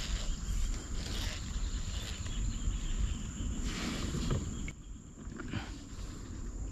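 A steady high-pitched insect drone from the riverside forest over a constant low rumble on the microphone, with short rushes of noise about a second in and again about four seconds in.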